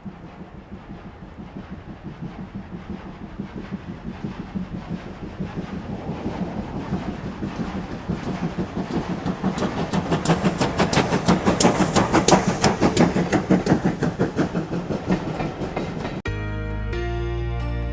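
Steam locomotive working hard, its exhaust beats coming about four to five a second and growing louder as it approaches, loudest about two-thirds of the way in and then easing slightly. It cuts off abruptly near the end, giving way to music.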